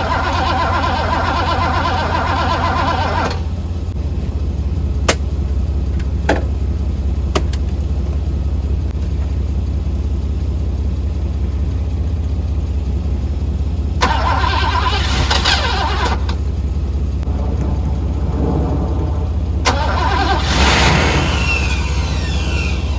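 1985 Mercedes-Benz W126 SEC's V8 being cranked on jumper cables with starting fluid in the intake, in three louder spells over a steady low rumble, without settling into running. The owner takes the failure to start for a fuel-delivery fault, either the fuel pump or the fuel pump relay.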